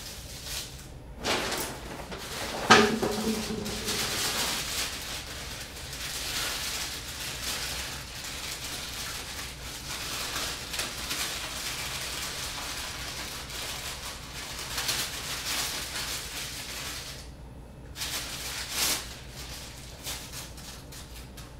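Irregular rustling and swishing noises, with a sharp knock about three seconds in that rings briefly, and a short pause near the end.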